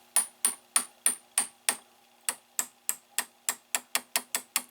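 A quick run of sharp clicks from a tube tester's rotary selector switch being turned through its positions, about sixteen of them, speeding up from about three to about five a second. A faint steady hum sits underneath.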